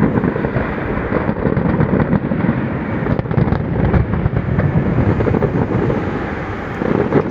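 Fireworks display at full barrage: a dense, continuous mass of overlapping deep bangs with sharp crackles on top.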